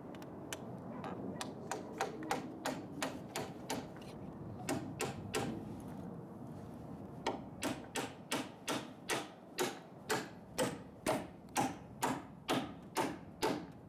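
Claw hammer driving a nail into a wooden roof board on a rafter: a run of quick, light taps, a pause of about two seconds, then steady, sharper blows at about two to three a second.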